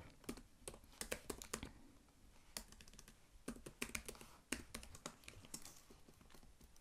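Faint typing on a computer keyboard: irregular runs of light keystrokes, with a short pause about two seconds in.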